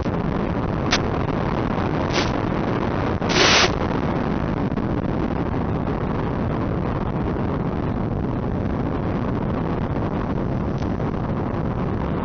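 Steady rushing of wind and propellers on an RC P-38 model plane in flight, picked up through the onboard FPV camera. Short bursts of static crackle come about one and two seconds in, and a longer one at about three and a half seconds.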